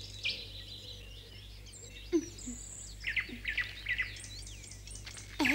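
Small birds chirping in short, quick calls, sparse at first and coming thicker from about three seconds in.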